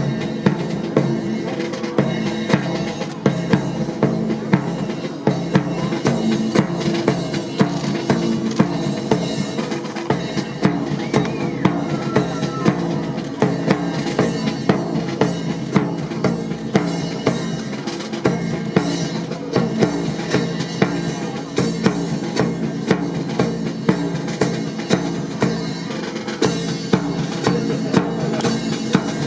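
Music with a steady, loud drum beat: sharp percussive hits about once a second over a continuous low backing.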